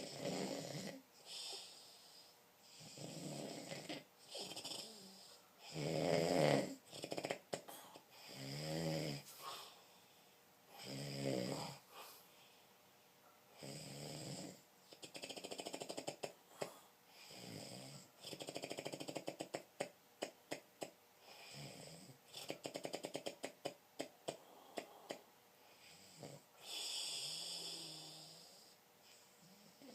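Snoring, one snore every two to three seconds. Several snores in the middle have a fast fluttering rattle.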